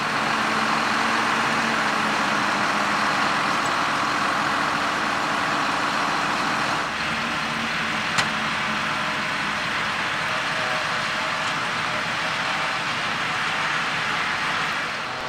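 John Deere tractors pulling forage wagons, their diesel engines running steadily. There is a single sharp click about eight seconds in.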